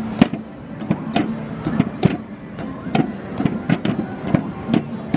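Mallet striking the pop-up moles of a whack-a-mole arcade game: about a dozen sharp, irregular hits, two to three a second, over steady arcade background noise.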